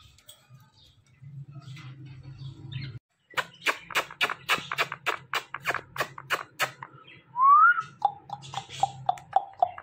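Kissing sounds exchanged with an Indian ringneck parakeet: after a quiet start, a fast run of lip smacks about five a second from about three seconds in, then one rising whistle, then a run of short kiss-like notes at one pitch about five a second.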